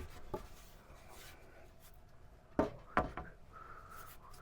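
A wooden board being handled: two sharp wooden knocks about half a second apart, with faint rubbing and handling between.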